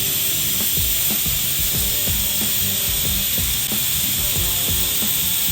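TIG welding arc burning on steel pipe, a steady hiss, as the bead is tied in where it started.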